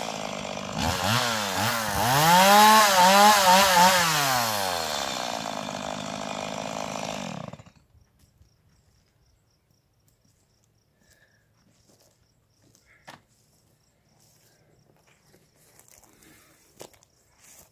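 Small chainsaw revving up and down several times, then settling to a lower, steady note and cutting off abruptly about seven and a half seconds in. After that, near silence with a few faint clicks.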